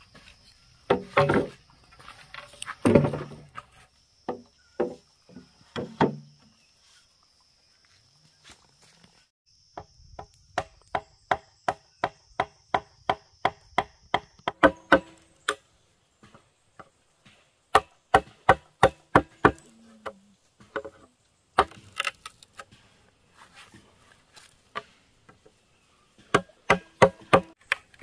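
Bamboo being chopped with a blade: irregular knocks at first, then runs of rapid, evenly spaced chopping strikes, about four a second. A steady high-pitched insect drone runs through the first half.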